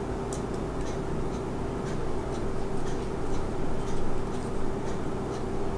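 Small screwdriver driving a tiny screw into a plastic model-kit part: faint, irregular clicks and scratches over a steady hum.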